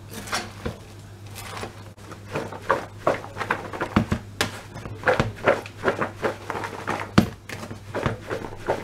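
Salad being tossed in a plastic bowl, with lettuce leaves rustling and the bowl knocking in quick repeated strokes that come faster after about two seconds. A steady low hum runs underneath.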